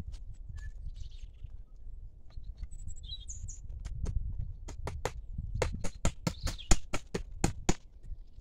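Hammer striking, about a dozen sharp knocks that come faster toward the end, over a steady low rumble. A bird chirps briefly a few seconds in.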